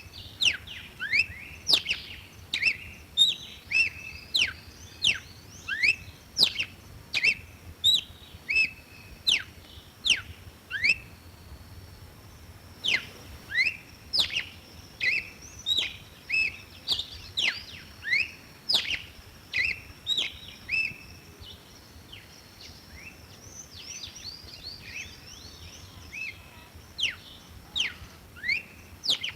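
Red-cowled cardinal singing: a long run of short, clear whistled notes, many sweeping quickly downward, about two a second. The song breaks off briefly about halfway through and turns sparser for a few seconds before picking up again.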